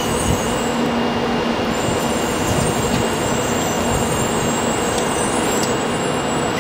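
Shinkansen 923-series Doctor Yellow inspection train approaching along the track, a steady running rumble with a few steady tones and a faint high hiss over it.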